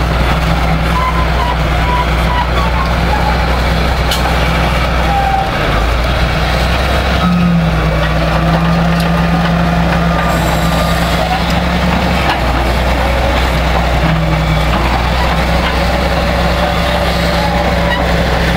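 Crawler bulldozer's diesel engine running steadily under load as its blade pushes through stumps and brush. The engine note strengthens into a heavier hum for several seconds midway, then settles back.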